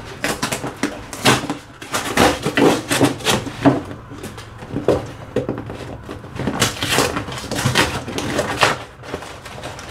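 Knife cutting and scraping through the tape and cardboard of a shipping box, a run of irregular scrapes, crackles and clicks.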